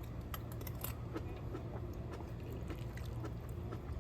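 A person chewing food, with small crunchy clicks scattered through, over a steady low hum.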